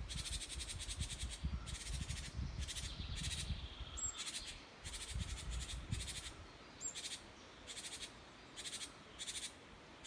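Great tit giving repeated harsh, buzzy churring calls, about one or two a second: an alarm or scolding call aimed at a person near its nest of chicks. A low rumble runs under the first six seconds.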